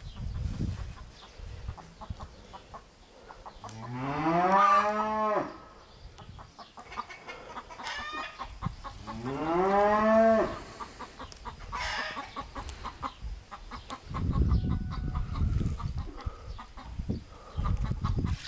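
Cow mooing twice, about four and nine seconds in: two long calls that rise in pitch and then hold. A dull low rumble follows near the end.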